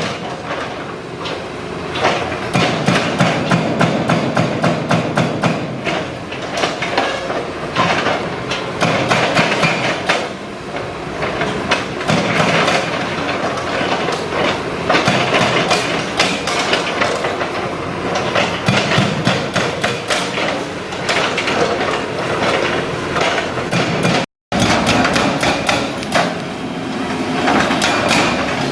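Excavator-mounted hydraulic breaker hammering rapidly into the concrete of a bridge, a dense run of sharp impacts, with one brief break about three-quarters of the way through.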